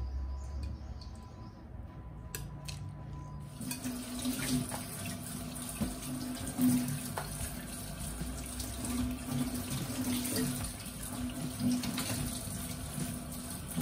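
A couple of light metal clinks, then about three and a half seconds in a kitchen tap starts running steadily into a stainless-steel sink, the water splashing over hands and prawns being rinsed under it.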